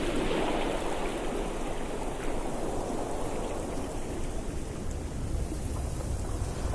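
Ocean waves: a continuous rush of surf, fuller in the first second or so and then easing off.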